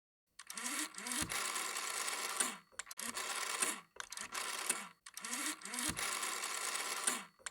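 Rotary telephone dial being turned and let go several times, each number followed by the dial's whirring, clicking spin back to rest.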